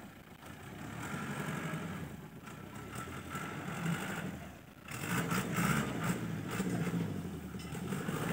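Light box truck's engine running at low speed as it drives over rough grassy ground, dipping briefly and then louder from about five seconds in.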